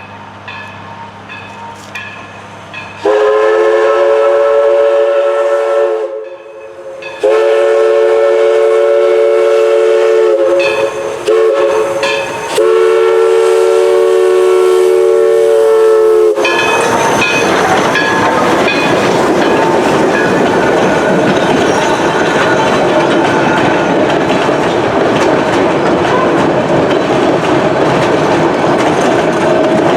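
Steam whistle of East Broad Top 2-8-2 No. 16 blowing the grade-crossing signal, two long, one short, one long. The train then passes close by, a loud steady rumble and clatter of locomotive and coaches.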